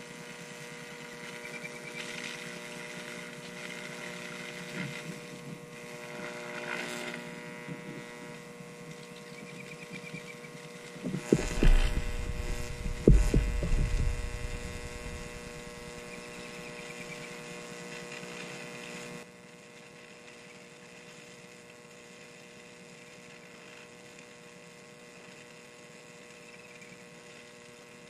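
High-voltage arc from a 15,000-volt supply buzzing with a steady mains hum against the terminals of a lithium AA-size cell. About 11 seconds in comes a loud, ragged burst lasting a few seconds, peaking twice, as the arc flares bright at the end of the cell. The buzz then drops to a quieter, steady hum at about 19 seconds.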